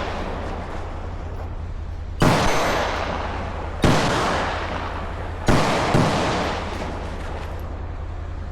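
Rifle shots in an IPSC rifle stage: four sharp reports, each dying away in echo over about a second. The first three are roughly a second and a half apart, and the fourth follows half a second after the third.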